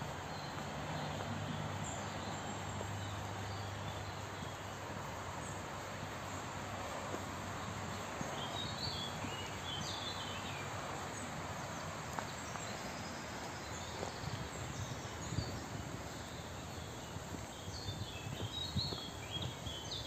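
Songbirds chirping in short clusters of high notes, twice, over a steady outdoor hiss, with a low hum during the first few seconds.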